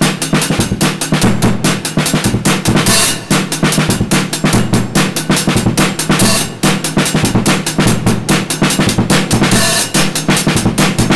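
Loud, fast-paced drum-driven music with dense, steady kick and snare hits, cutting off abruptly just after the end.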